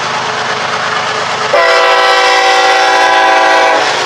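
Freight locomotives passing close with engine and wheel noise, and one long blast of the lead locomotive's air horn from about a second and a half in until near the end.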